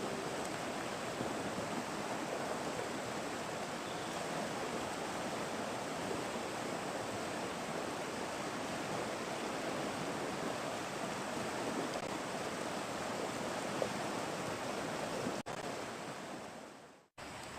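Steady rushing of flowing river water, fading out near the end.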